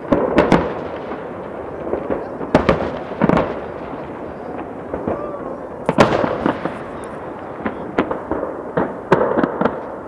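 Aerial firework shells bursting in a salute display: about a dozen sharp bangs at irregular intervals over a steady rumble of further distant bursts, the loudest about six seconds in.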